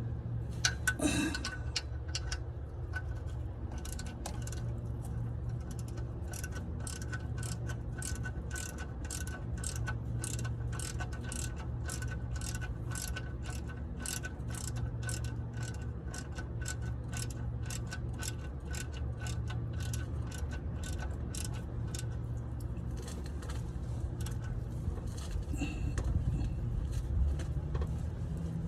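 Ratchet wrench clicking in a steady run of about two or three clicks a second while the oil drain plug is tightened back in, over a steady low hum.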